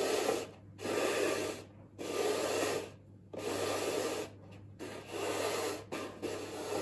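Plastic disc cones slid and scraped across a tiled floor as they are shuffled by hand, in a run of rubbing strokes about one a second.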